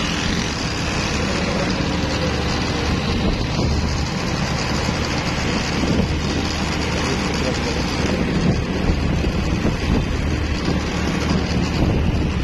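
Busy road traffic: a steady wash of vehicle engine and tyre noise.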